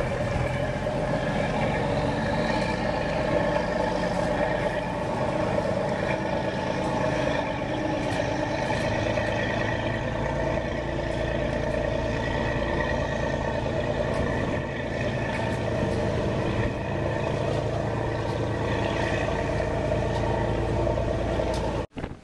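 Engine of a passenger tour boat running steadily close by at the ferry pier, a continuous mechanical hum; it cuts off abruptly near the end.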